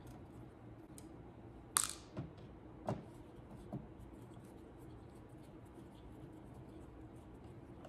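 About four small sharp clicks and taps from a screwdriver working screws on an Avid SC48 mixing console's fader panel, the loudest about two seconds in. A steady low hum runs underneath.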